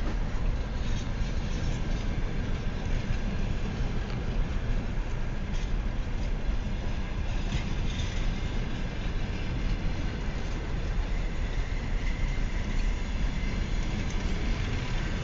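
Railway passenger coaches rolling slowly past on the platform track: a steady low rumble of steel wheels on the rails, with an occasional click over the rail joints.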